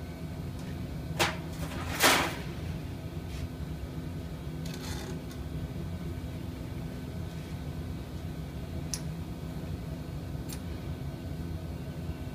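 Steady low hum of workshop machinery, with two sharp knocks about one and two seconds in, the second the loudest, and a few fainter clicks later: hand tools striking the metal mixing bowl as it is cleaned out.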